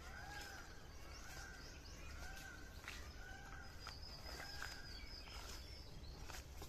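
Birds calling: a short arched call repeated about five times, roughly once a second, with a quick run of thin, high chirps about four to six seconds in. Scattered faint clicks sound under the calls.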